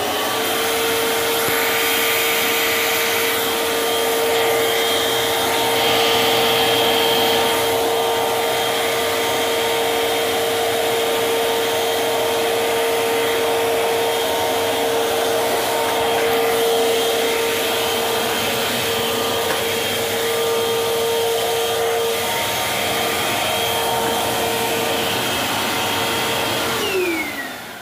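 Eureka Airspeed All Floors upright vacuum cleaner spinning up at the start, then running steadily with a high motor whine over rushing air, and switched off near the end, its pitch falling as it winds down. The motor runs but the brushroll is not turning, so it does not clean the carpet.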